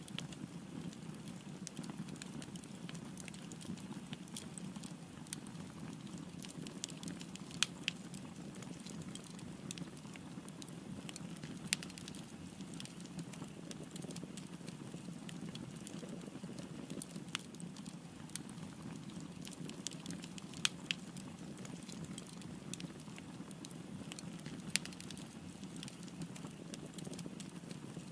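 Wood fire burning, with a steady low rushing under irregular crackles and occasional sharp, louder pops.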